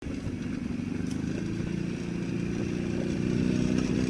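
Four-wheeler ATV engine running steadily as the quad drives closer, growing a little louder about three seconds in.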